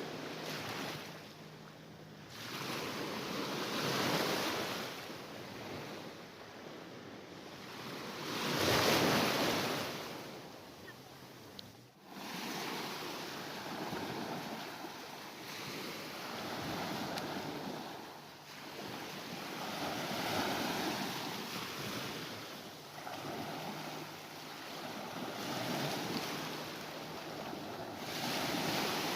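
Mediterranean Sea waves breaking and washing in, swelling and ebbing every few seconds. The biggest surge comes about nine seconds in.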